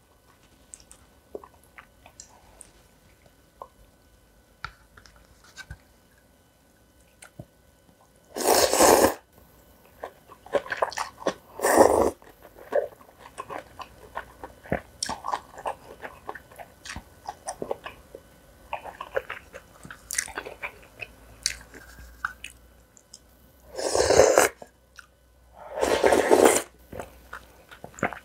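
Close-miked eating of spicy cold noodles: steady chewing with many small wet clicks, broken by four loud slurps, two of them close together near the middle and two near the end.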